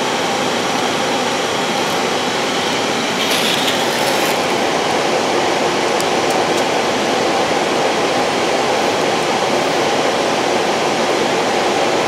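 Steady rushing of airflow and engine noise on an airliner's flight deck during the descent on approach, with a brief hiss about three seconds in.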